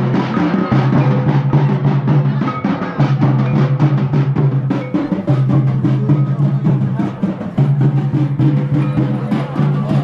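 Santali dance music: fast, busy drumming over a low held tone that breaks off briefly about every two seconds.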